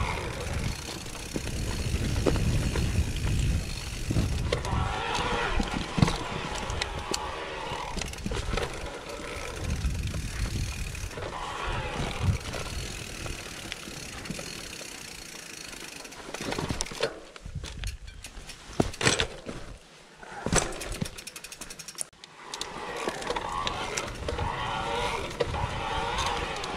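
Mountain bike riding down a rough, rocky singletrack: tyres rolling and crunching over stones and the bike rattling, with many sharp knocks. About two-thirds in it goes quieter for a few seconds and a run of rapid clicks is heard.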